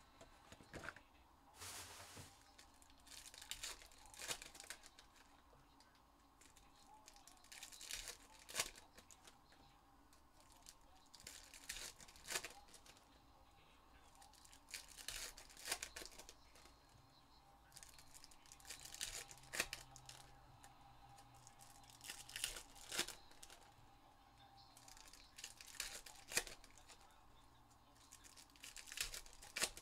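Trading-card pack wrappers being torn open and crinkled one after another, a short crisp rip about every three to four seconds.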